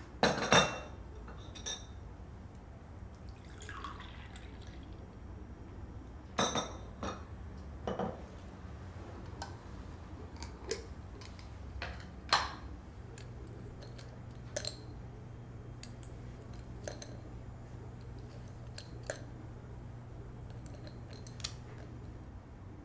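Coffee being served: scattered clinks and knocks of a ceramic cup and saucer, glass and a spoon, with a short pour of liquid rising in pitch about four seconds in. A steady low hum starts a little past halfway.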